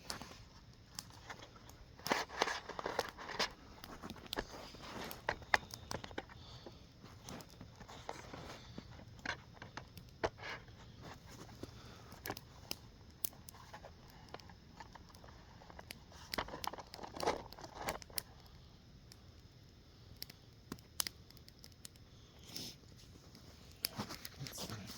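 Dry twigs and leaves crackling and crunching in a run of irregular sharp snaps, with two denser crunchy spells, one about two seconds in and one about two-thirds of the way through.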